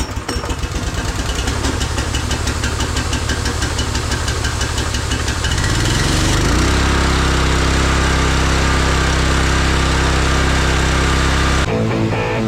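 Simpson 4200 PSI gas pressure washer's engine running just after starting, with a fast, even pulse; about halfway through its note shifts and it settles into a steadier, slightly louder hum. Guitar music cuts in near the end.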